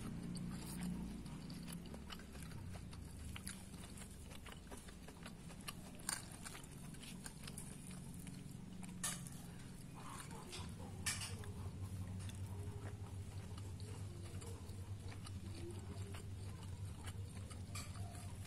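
A person eating a meal: soft chewing and mouth noises, broken by a few sharp clicks, over a steady low hum.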